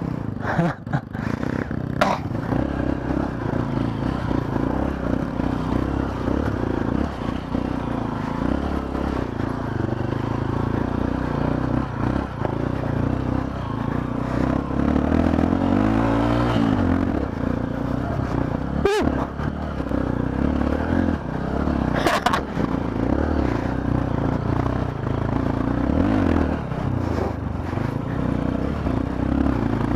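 Trail motorcycle engine pulling up a climb, its pitch rising and falling as the throttle opens and closes, with a few sharp knocks and clatter along the way.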